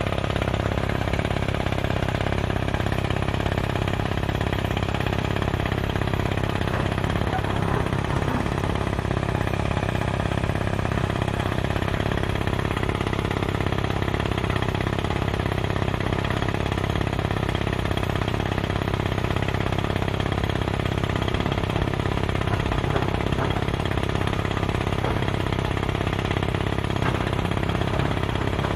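Kaishan drilling rig's engine running steadily at constant speed.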